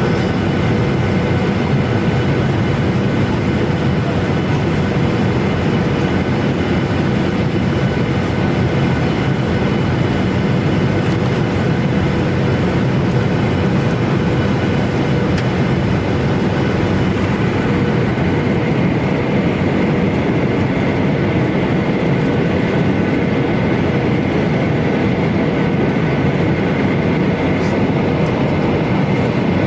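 Steady rumble inside a moving vehicle, with a few constant hum tones running through it.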